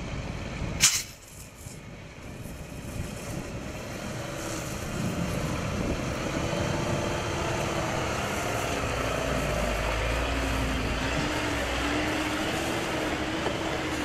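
Fire truck engine running with a fire hose spraying water, a steady rushing noise that builds about five seconds in; a sharp click about a second in.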